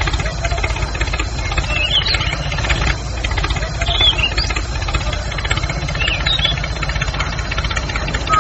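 Tractor engine running steadily with a fast knocking beat, with a few short high chirps over it.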